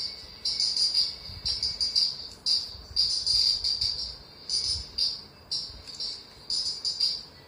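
An insect, cricket-like, chirping over and over in short high-pitched chirps, several each second in uneven clusters, with soft low bumps underneath.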